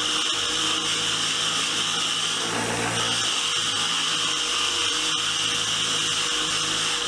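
Motor-driven wire wheel spinning against a steel wrench, scrubbing off the remaining rust and scale left after a Deox-C soak. It is a steady motor hum with a harsh scratching hiss that drops out briefly about two and a half seconds in, as the work is lifted off the wheel.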